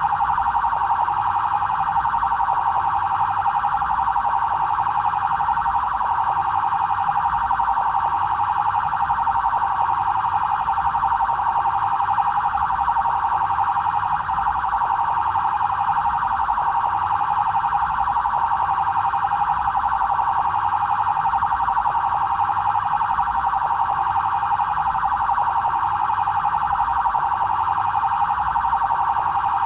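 Electronic siren of a BAEP (São Paulo military police special-actions battalion) vehicle, sounding its standard 'trail' tone. It is a high, fast-cycling wail that runs on without a break.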